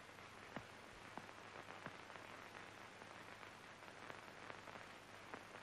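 Near silence: a faint, even hiss with a few scattered faint clicks.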